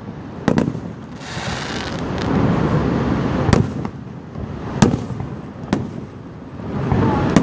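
Fireworks display: aerial shells bursting in several sharp bangs, with a rushing wash of noise swelling between them from about a second in.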